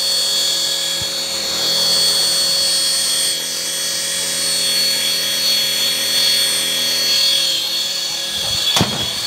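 A tiny sensor-controlled toy helicopter's electric rotor whirring with a steady high whine as it hovers and climbs on its own. Near the end there are a couple of sharp knocks, as it bumps the ceiling.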